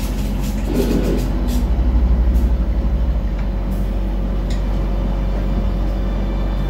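Steady low rumble inside a moving dark-ride submarine vehicle, with a brief swell of noise about a second in and a few faint clicks.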